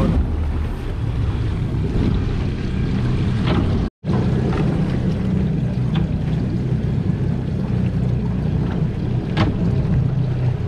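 Triple Mercury Verado 400 four-stroke outboards idling as the boat creeps into its slip: a steady low rumble with water sloshing around the hull. The sound cuts out for an instant about four seconds in.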